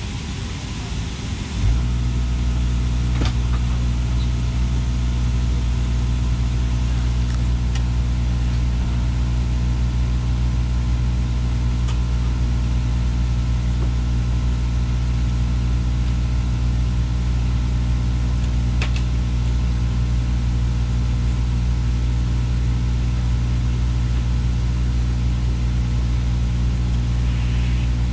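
Steady low hum of an airliner's systems in the cabin, which steps up suddenly with a click about two seconds in and then runs evenly. A few faint clicks sound later.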